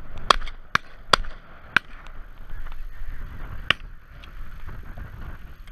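A volley of shotgun shots at a flock of snow geese: four sharp reports in quick succession over the first two seconds, then one more about three and a half seconds in.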